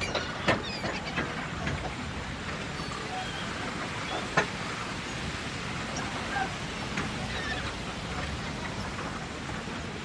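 Marina boat dock ambience: a steady wash of background noise with two sharp knocks, one about half a second in and a louder one a little past four seconds, and a few faint short chirps.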